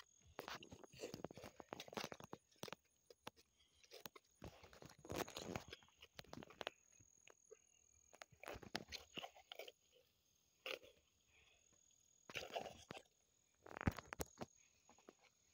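Bare hands digging and scooping wet soil out of a hole in grassy ground: irregular scrapes and crunches in short spells with pauses between, and a sharper knock near the end.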